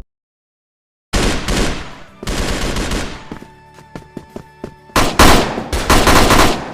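Machine-gun fire sound effect: after about a second of silence, bursts of rapid automatic fire, a lighter run of shots about six a second in the middle with a steady tone behind it, and a louder burst near the end.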